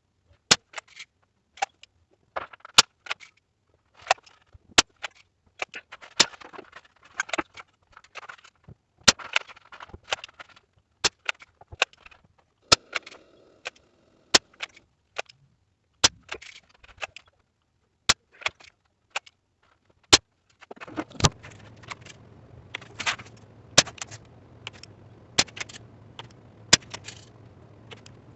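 Many sharp clicks and taps, one or two a second, with no speech; about three quarters of the way through a steady low rushing noise comes in under them.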